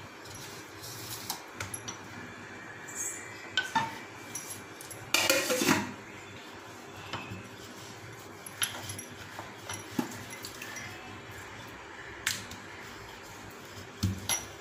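Wooden rolling pin rolling parotta dough on an oiled stone countertop, with scattered light clicks and knocks. One louder, longer scrape comes about five seconds in.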